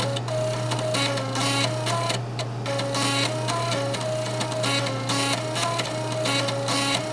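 Floppy disk drive stepper motors playing a melody as buzzy, stepped notes that change every fraction of a second. Regular noisy mechanical hits keep the beat over a steady low hum.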